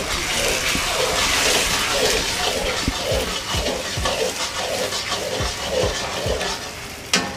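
Long metal spatula scraping and stirring a thick, pasty chicken-and-vegetable mixture in an iron wok over a gas flame, in repeated strokes over a steady hiss. A sharp clank near the end.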